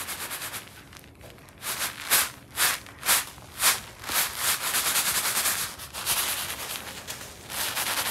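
Loose granular cat litter being raked and scooped by hand, a gritty swishing and rustling with a quick run of sharper strokes about half a second apart a few seconds in.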